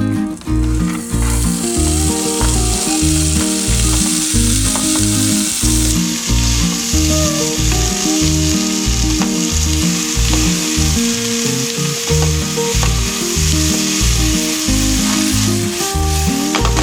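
Spinach sizzling as it sautés in oil in a frying pan, a steady hiss starting about a second in. Background music with a steady beat plays underneath.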